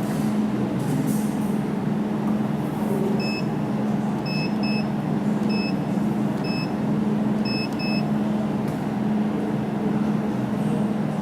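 Jewelry laser welding machine running with a steady hum, giving about seven short high beeps between three and eight seconds in.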